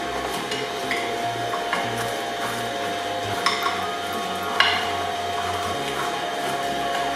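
Twin-shaft shredder running with a steady motor hum and the rumble of its turning cutter discs, while a frozen red bell pepper bounces on the blades and knocks against them. The sharpest knocks come about three and a half and four and a half seconds in.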